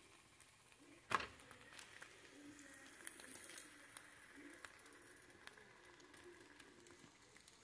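Faint sizzling of an omelet cooking in a nonstick frying pan, with scattered small ticks and a single sharp knock about a second in.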